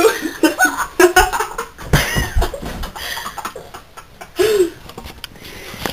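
People laughing and giggling in short bursts, loudest in the first two seconds, with a few low thumps about two seconds in.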